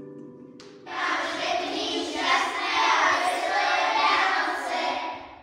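A group of children calling out together in unison for about four seconds, starting about a second in and fading near the end.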